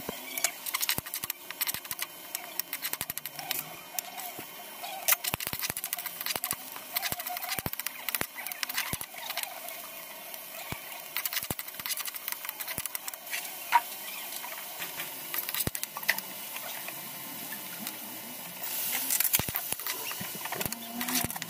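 Metal spatula scraping and tapping against a steel wok while stirring chopped garlic and onions, in quick, irregular clicks.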